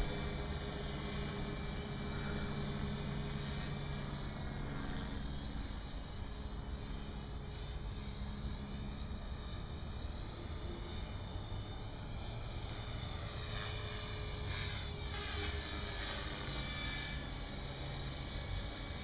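Align T-Rex 450 Pro electric RC helicopter in flight: the whine of its motor and the buzz of its rotor blades run steadily, and the whine glides up and down in pitch about five seconds in and again from about fourteen to seventeen seconds in.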